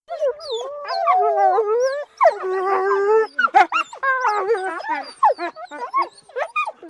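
Wolf vocalising: two drawn-out, wavering whining howls, then a quick run of short yelping and whimpering calls that rise and fall in pitch.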